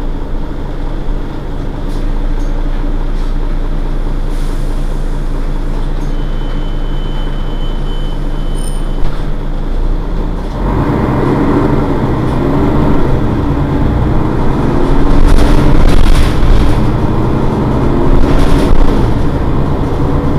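Mercedes-Benz Citaro city bus's diesel engine running steadily while the bus stands at a stop. About ten seconds in the running sound grows louder and fuller, and near the end there are a couple of short hisses.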